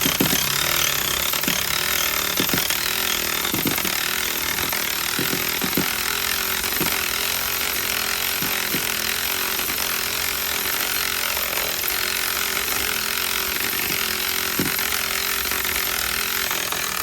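Electric angle ratchet running continuously for a long stretch on an alternator mounting bolt, with light clicking through it. The bolt keeps spinning without coming undone because nothing is holding it at the back.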